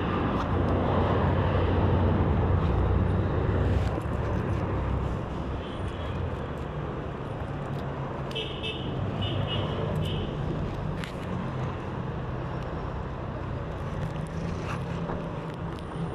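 Road traffic going by: steady road noise with a vehicle's low engine hum, loudest for the first four seconds. A few short high beeps sound about eight to ten seconds in.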